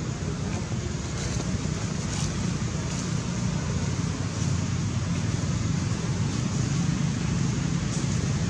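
Steady low rumble and hiss of wind buffeting the microphone, with a few faint brief ticks.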